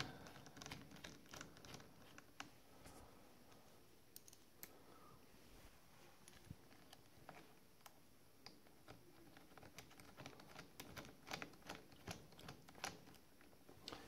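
Faint, scattered small metallic clicks and ticks of a hex key turning small bolts into a steel vise jaw, more frequent toward the end.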